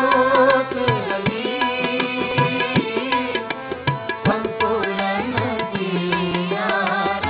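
Sikh devotional kirtan music: tabla strokes keeping a steady beat under held, melodic harmonium notes.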